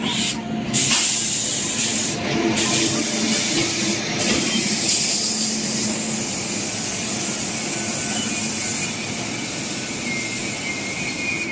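Mangla Lakshadweep Express's LHB passenger coaches rolling past as the train arrives: a steady rushing hiss of wheels on rail and passing bodywork, with a faint high squeal near the end.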